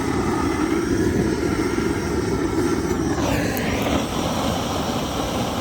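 A fire-lighting tool runs with a steady mechanical roar and whine while it lights a cup of wood pellets in the stove's firebox. The pitch shifts about three seconds in.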